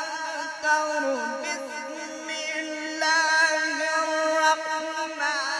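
A man reciting the Quran in melodic tajweed style, holding long ornamented notes that waver and bend in pitch. The voice drops lower about a second in, then rises and swells into a louder held note from about three seconds in.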